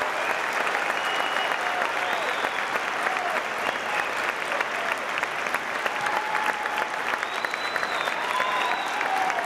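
Audience applauding steadily: a dense rattle of many hands clapping, with a few cheers and calls rising over it.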